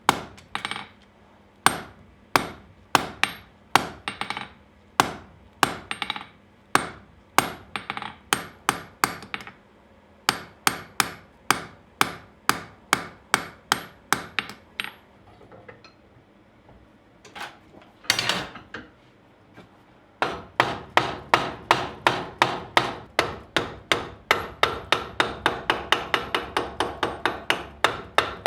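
Blacksmith's hand hammer striking steel on an anvil. Spaced blows come about one to two a second, then stop for a few seconds past the middle. A fast even run of about four blows a second follows, with the anvil ringing.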